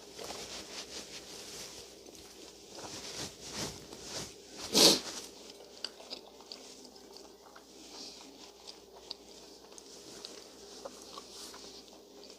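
A person biting into and chewing a fried bologna sandwich on a toasted ciabatta bun: one loud crunchy bite about five seconds in, among small crackles and soft chewing.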